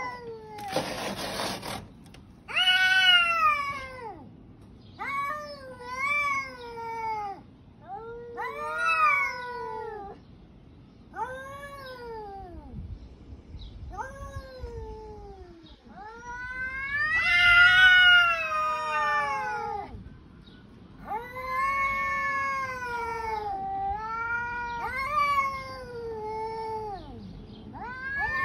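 Cats caterwauling in a territorial standoff: a series of long, drawn-out yowls that rise and then fall in pitch, with the loudest stretch about two-thirds of the way through. A short, harsh noisy burst comes about a second in.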